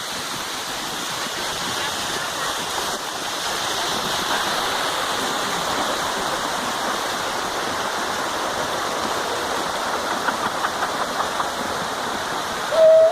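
Steady rush of water from the head of the Salto do Itambé waterfall. A brief loud tone sounds near the end.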